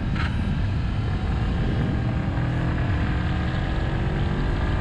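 Honda CB500X motorcycle engine running on the move: a steady low rumble whose pitch rises slowly in the second half as it picks up speed.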